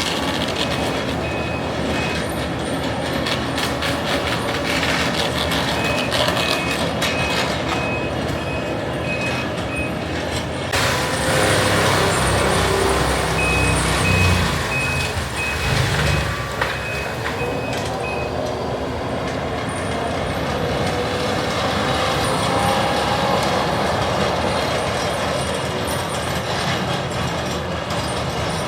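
Heavy machinery running, with its reversing alarm beeping in runs of even beeps: near the start, from about six to ten seconds in, and again from about thirteen to eighteen seconds in. The engine noise swells to its loudest between the second and third runs of beeps.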